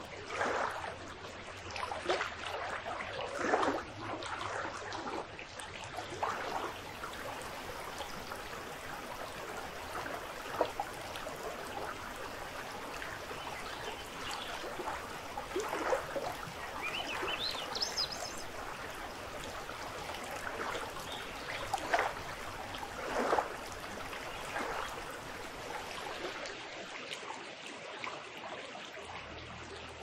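Shallow river running over rocks: steady rushing water with frequent splashes and gurgles. A brief rising whistle sounds about halfway through.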